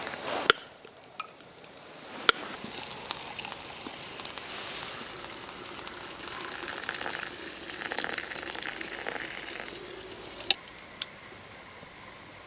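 Hot water pouring from a stainless steel chimney kettle into an enamel mug: a steady splashing stream that begins about two seconds in and stops after roughly eight seconds. A few sharp knocks come near the start and again near the end.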